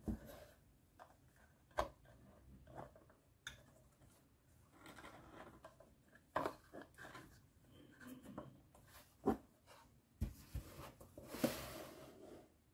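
Hard plastic toy kitchen parts being handled: scattered clicks and knocks of small doors and drawers, with rustling of clear plastic film. Near the end a longer scraping rush as the toy fridge unit is slid across the table into place.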